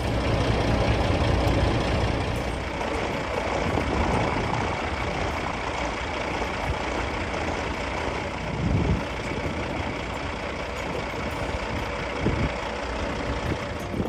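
Steady vehicle running noise, with a couple of brief louder bumps in the second half.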